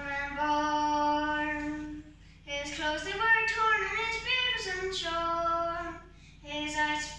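A young girl singing solo and unaccompanied, holding long notes in phrases, with short breaks for breath about two seconds in and again about six seconds in.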